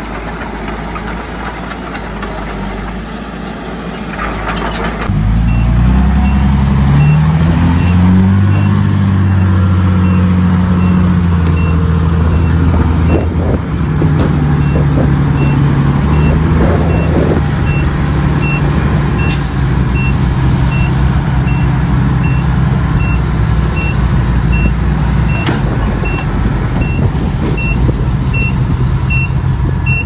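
Heavy diesel earthmoving machinery working: about five seconds in a big diesel engine comes in loud and revs up, then runs steadily under load. A reversing alarm beeps at an even pace over it.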